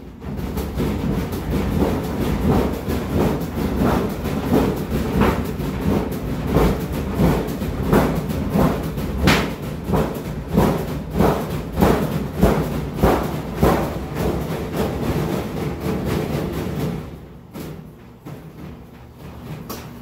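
Brastemp 14 kg top-load washing machine spinning an unbalanced load of rugs and floor cloths, the off-balance tub thudding in a steady rhythm of somewhat more than one knock a second. The noise drops off sharply near the end.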